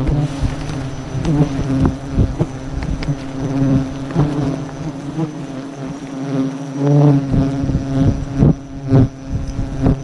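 Bees buzzing close around the microphone, a loud humming drone that wavers in pitch as they fly past, with scattered knocks and scrapes from the climber's gear against the tree trunk.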